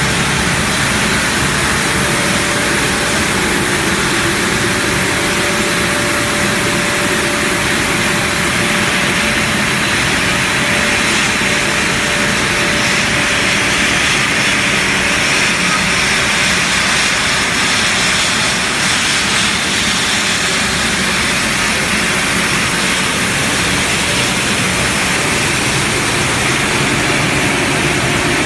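PVC plastic granulating line running: steady, loud machinery noise from the extruder, strand pelletizer and feeders, a dense hiss with a few faint steady hum tones through it.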